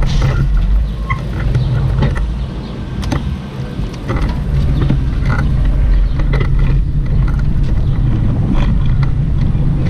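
City street noise heard from a bicycle-mounted action camera: a steady low rumble of car traffic and air moving past the microphone, with scattered light clicks and rattles from the bicycles.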